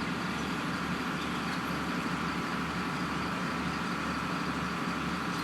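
Steady, unchanging drone of vehicle engines.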